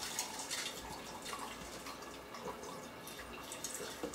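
Watermelon juice trickling and dripping from the spout of a hand-turned screw fruit press as the plate squeezes the fruit down.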